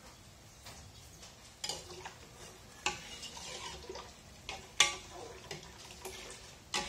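A metal ladle stirring milk in a stainless steel cooking pot, clinking against the pot's side four times; the loudest clink comes about two-thirds of the way through.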